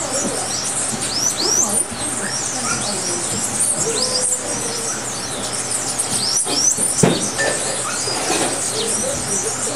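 Many small birds chirping and squeaking together, a dense run of short, high, quick-gliding notes. A couple of sharp clicks stand out about two-thirds of the way through.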